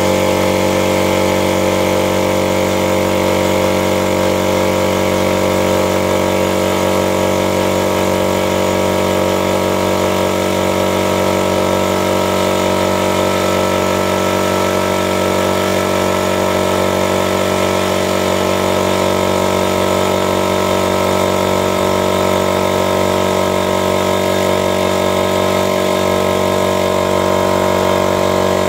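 Superworks direct-drive air compressor running steadily under load, pumping its 40-litre tank up from empty, with the tank pressure rising. A constant motor-and-pump drone made of many steady tones, unchanging in loudness.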